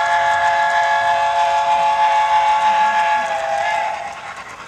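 Whistle of a sound-equipped HO-scale model steam locomotive: one long multi-tone steam whistle blast that sags a little in pitch and dies away about three and a half seconds in.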